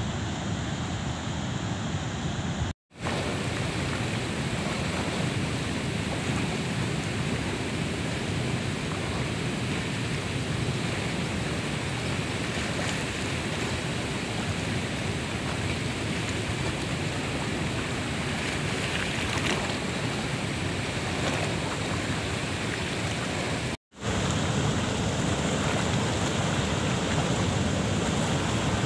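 Fast river water rushing below a weir's open sluice gates, heard as a steady, even rush of noise. It cuts out for a split second twice, about three seconds in and near the end.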